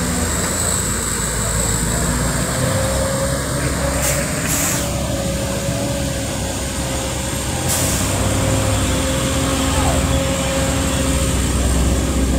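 Heavy truck engine running slowly under load with a steady whine. Short air-brake hisses come about four seconds in and again about eight seconds in, over passing traffic.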